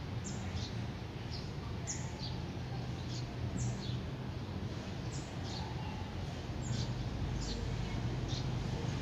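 Small birds chirping: short, high chirps that fall in pitch, about one or two a second, over a steady low rumble.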